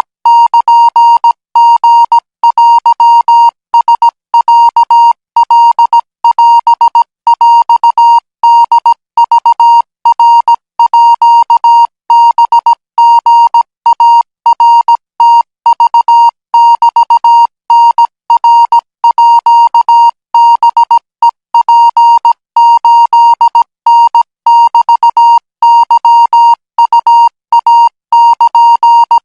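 Thai Morse code practice signal: a single steady beep of about 1 kHz keyed on and off in short dots and longer dashes, sent at 20 words per minute.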